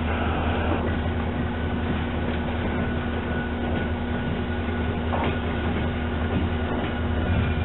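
Two EMD SD40-2 diesel locomotives, an SD40-2W leading, rolling slowly past with their 16-cylinder 645 engines running in a steady low drone. A few faint clicks come near the end.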